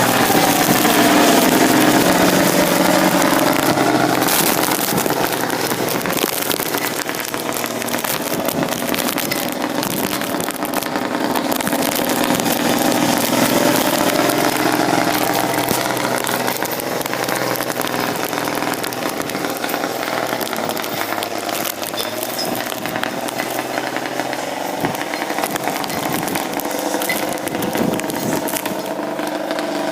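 Bombardier J5 Muskeg tracked snow vehicle's engine running under load, its revs rising and falling slowly a few times, over a constant crackle of small clicks.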